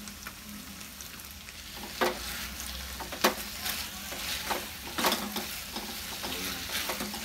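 Diced onion and capsicum sizzling in soy and chilli sauce in a hot pan over a high flame, with a steady hiss. From about two seconds in, a spatula stirs and tosses the vegetables, giving several sharp scrapes and knocks against the pan.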